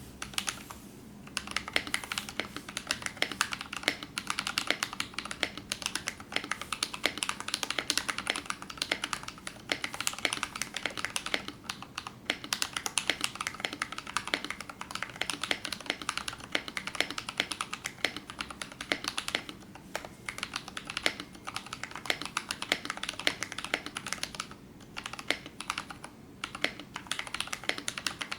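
Fast continuous typing on a custom mechanical keyboard: an acrylic Tofu65 case with a brass plate, KBD67 Rev2 PCB, Durock stabilisers and Naevies switches spring-swapped to 55 g. Dense key clacks start about a second in, with a few short pauses along the way.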